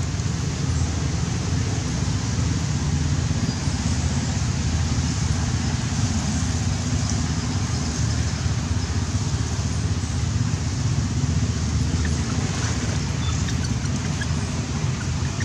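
Steady low outdoor rumble, with a few faint clicks about thirteen seconds in.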